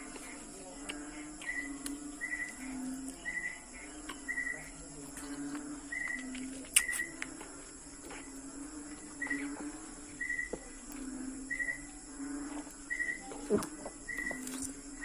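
A bird chirping short, high notes, often doubled, about once a second, over lower cooing calls. Two sharp clicks stand out, the louder one about halfway through.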